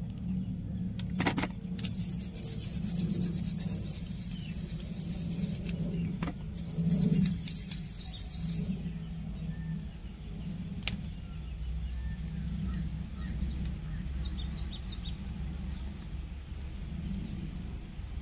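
Clicks and scratchy scrubbing from small carburettor parts being cleaned by hand, densest in the first half, over a steady low background hum. Birds chirp a few times in the second half.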